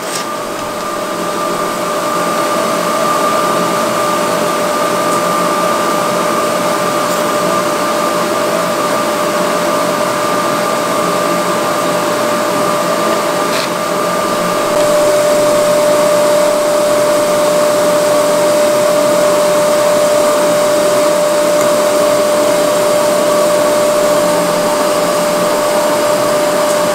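Electric blower running steadily: a whirring rush of air with a constant motor whine, growing a little louder in the first couple of seconds and stepping up again about halfway through.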